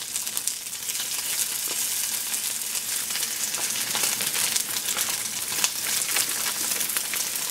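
Soy-based veggie chicken strips sizzling in hot oil in a skillet: a steady hiss with many small crackling pops.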